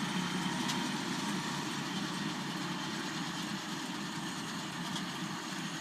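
Kubota M100X tractor's diesel engine running steadily under load while baling hay.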